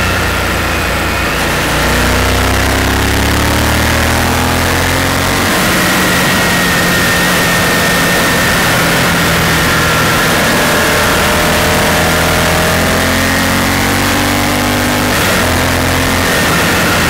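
Honda Varadero's V-twin engine running on the move, its pitch rising and falling with the throttle, over a steady rush of wind noise.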